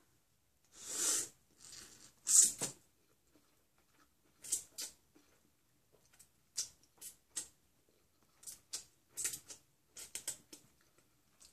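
Hot ramen noodles slurped up from chopsticks: two longer slurps about one and two and a half seconds in, the second the loudest, then a dozen or so short wet chewing and lip-smacking sounds.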